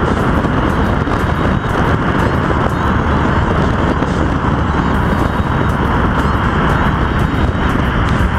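Steady rush of wind and road noise from a camera mounted on the outside of a Porsche driving at road speed.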